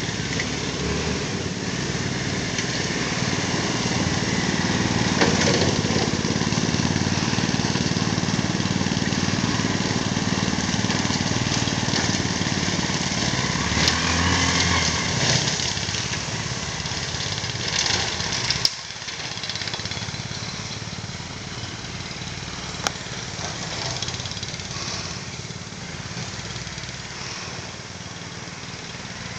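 Swisher tow-behind mower's engine running with its blades cutting grass and fallen leaves, mixed with the engine of the quad bike towing it. The sound is steady, loudest through the first half, and drops sharply to a quieter level about 18 seconds in.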